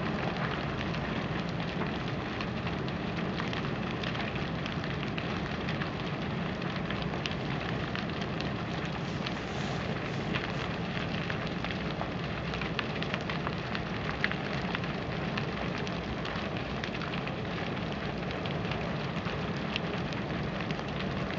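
A large wooden temple structure, about ten stories tall, burning fully engulfed. The flames make a steady rushing noise, with frequent sharp crackles and pops from the burning timber.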